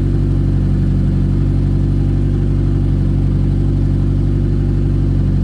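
Second-generation Toyota MR2's engine and loud exhaust running steadily, a low, even drone heard from inside the car's cabin.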